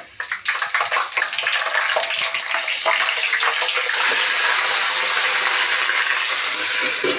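Wet boiled mustard, fenugreek and spinach greens hitting hot mustard oil in a metal kadhai: a loud sizzle with crackling oil spatter and ladle scrapes. The sizzle builds over the first couple of seconds and then holds steady.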